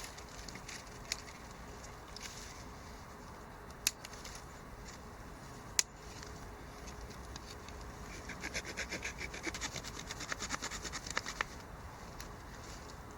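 Multitool blade working a branch to clean it: a few sharp isolated clicks, then in the second half a quick run of rasping wood strokes, about five a second, lasting some three seconds.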